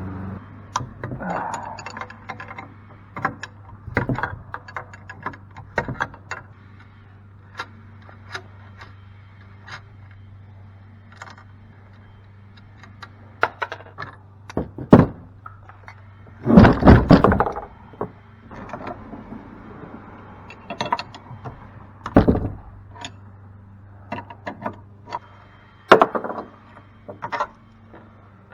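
Hand tools and cast-aluminum pump parts knocking and clanking while the pump's big nuts and bolts are worked loose, in scattered knocks and clicks with a loud run of clatter a little past the middle. A low steady hum runs underneath.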